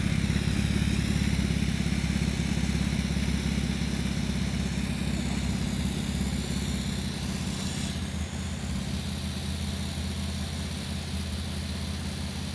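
Truck engine idling steadily, its exhaust driven through a hose into an inflatable X-Jack exhaust jack as the bag fills and lifts the vehicle. The sound eases off gradually.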